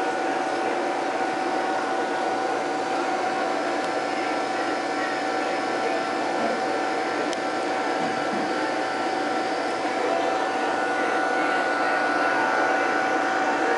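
Steady machine hum and rushing noise of aquarium pumps and filtration, with a constant whine-like hum running through it.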